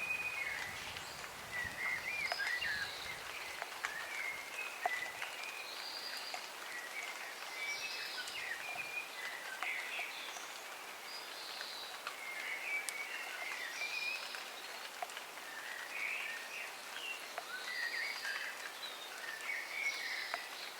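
Songbirds singing short warbled phrases that come again every couple of seconds, over a steady hiss of light rain with scattered drops ticking.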